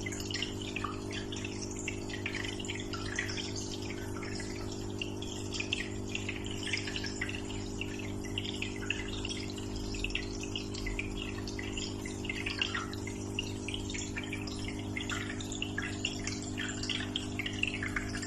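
Aquarium water splashing and bubbling with a continuous patter of small drips, over a steady low hum from the tank's pump.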